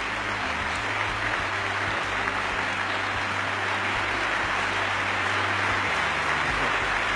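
A large audience applauding steadily: a standing ovation of sustained clapping filling a legislative chamber.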